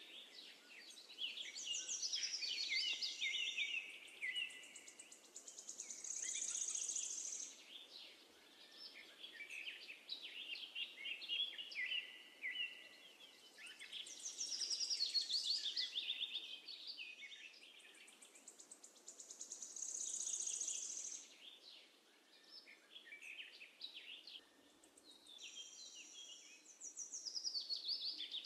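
Birdsong: high chirps and rapid trills in phrases that swell and fade every few seconds, over a faint background hiss.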